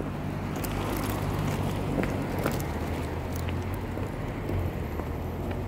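Pushchair wheels rolling over rough tarmac: a steady low rumble with scattered light clicks and rattles.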